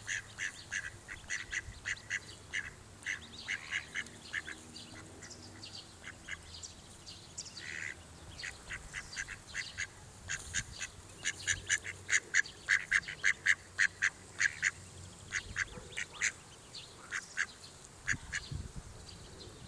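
Mallards calling: a long run of short, quick calls, several a second, loudest about halfway through.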